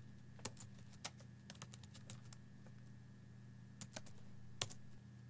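Computer keyboard being typed on in short runs of faint key clicks, with one sharper keystroke near the end, over a low steady hum.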